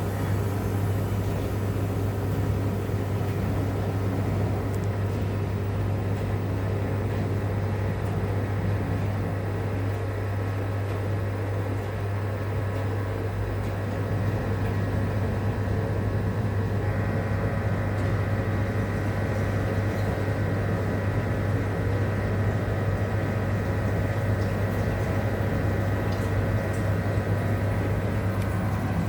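Rex-Electrolux RJ 7160 TA front-loading washing machine running late in its cycle: a steady low hum with steady whining tones over it, and a higher whine that comes in a little past halfway.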